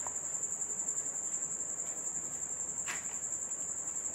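An insect's high, steady chirring trill, pulsing rapidly without a break, with one light tap about three seconds in.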